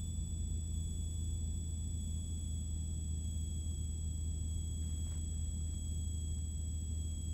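Cessna 182RG's piston engine and propeller droning steadily in the cabin on approach, with a thin steady high whine over it.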